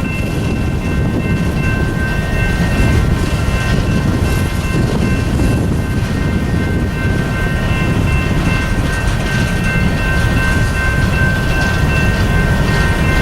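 Freight train rolling past with a loud, steady rumble of wheels on rail. Faint, steady high-pitched squeals ride over the rumble throughout.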